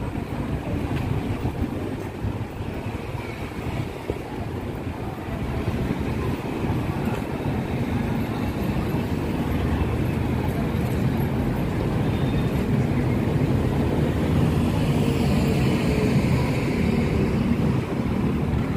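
City street traffic: a steady rumble of passing vehicles and engines, growing louder in the second half as a minibus comes by close.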